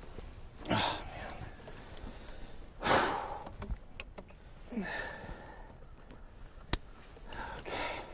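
A man's heavy breathing: four loud sighing exhalations about two seconds apart, the loudest about three seconds in. A single sharp click about two-thirds of the way through.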